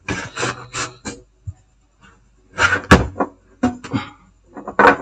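Clicks and clatter of laptop parts being handled on a workbench, in several short groups with quiet gaps between.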